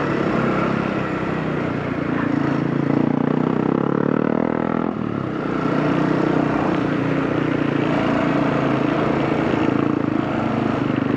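Kawasaki KLX230 single-cylinder motorcycle engine pulling uphill under load. The engine note rises for a few seconds, drops sharply about five seconds in, then runs on fairly steadily.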